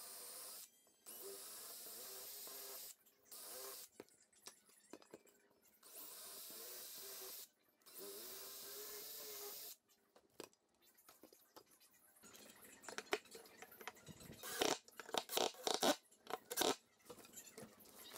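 Cordless drill running in five short runs of one to two seconds each, boring down into a pine block. In the second half, irregular knocks and clatter as wooden and metal parts are handled and set down; these are the loudest sounds.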